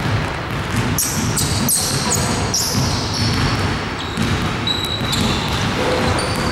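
A basketball being dribbled on a hardwood gym floor, with sneakers squeaking several times as players move and stop.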